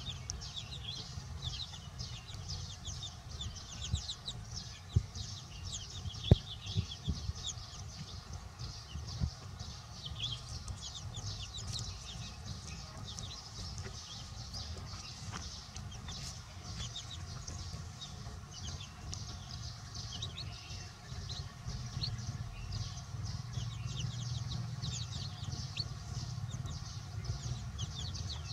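A brood of chicks peeping continuously, a dense run of short high cheeps, over a low steady rumble. A few sharp knocks come between about four and nine seconds in, the loudest about six seconds in.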